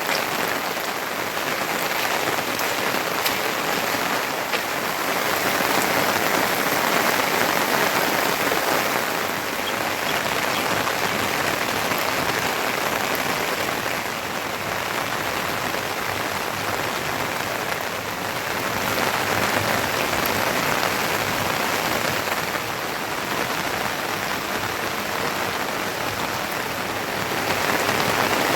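Heavy rain falling steadily, with scattered drop hits. It swells and eases in strength every several seconds.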